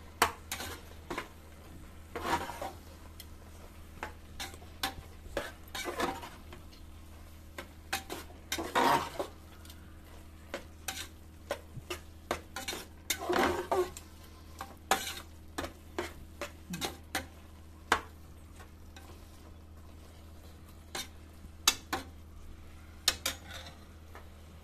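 A flat steel spatula stirring and scraping sliced mushrooms through thick masala in an aluminium pot, with irregular scrapes and clanks against the metal that come thick and fast at first and thin out in the second half. A faint sizzle of the mushrooms frying runs underneath.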